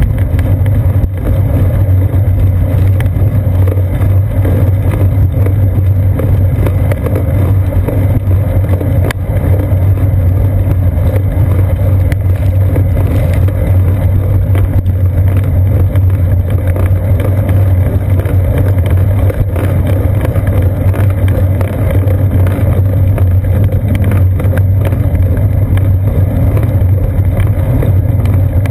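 Steady low rumble of wind and road vibration picked up by a seat-post-mounted GoPro camera on a moving bicycle, with tyre noise from the paved path.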